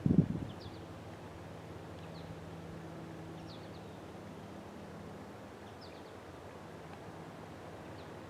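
Scattered short, high bird chirps over a faint, steady low engine hum from a distant vehicle, with a brief low thump right at the start.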